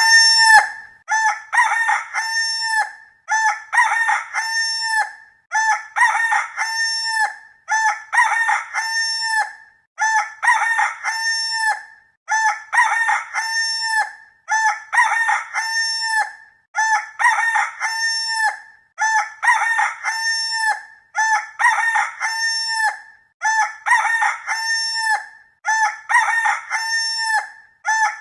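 Rooster crowing cock-a-doodle-doo over and over, the same crow repeating about every two seconds, each one a choppy start running into a long held final note.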